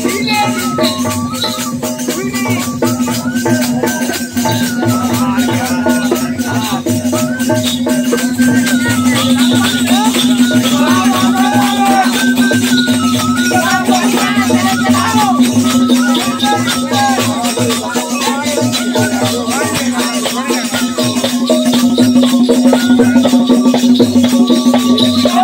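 Live Bundeli Rai folk music: a hand-held pipe plays a stepping melody over a steady low drone, driven by a barrel drum and a fast, continuous jingling rattle. It gets somewhat louder near the end.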